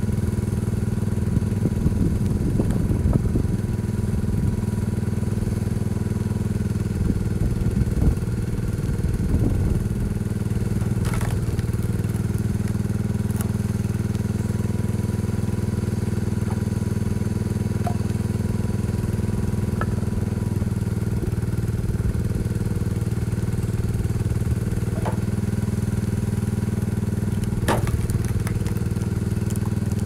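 1975 Case 224 garden tractor's engine running steadily, driving a homemade hydraulic wood splitter. Scattered knocks and cracks of firewood being split and handled sound over it.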